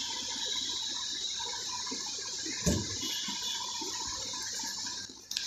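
Steady rushing hiss, like running water, with a single soft knock about two and a half seconds in.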